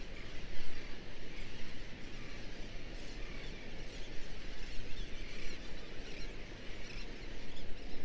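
Many short, high bird calls scattered over a steady rushing noise.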